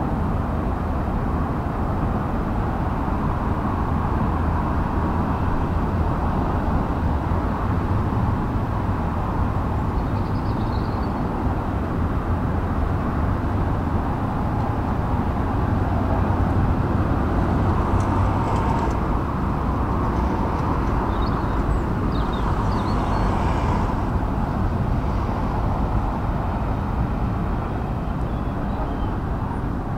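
Steady outdoor rumble with no breaks, with a few faint high chirps here and there.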